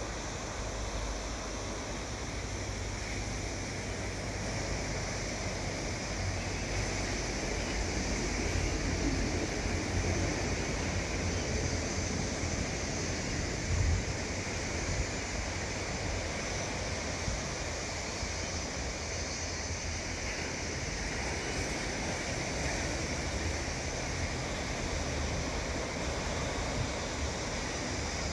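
Steady wash of sea surf with wind buffeting the microphone, and one brief louder bump about fourteen seconds in.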